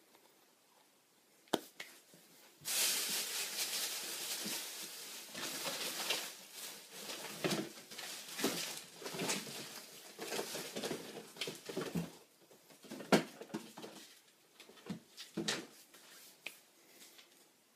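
Packaging being handled and unwrapped by hand: a single click, then from about two and a half seconds in a dense run of rustling and crinkling with many small clicks and knocks.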